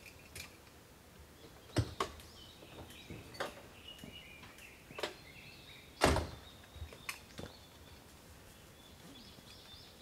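A few scattered knocks and clunks, the loudest about six seconds in, with birds chirping faintly in the background.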